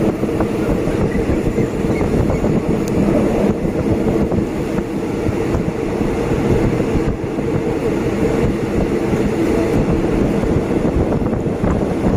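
Steady running noise of a moving passenger train heard from inside the carriage by an open window: wheels on the rails and rushing air.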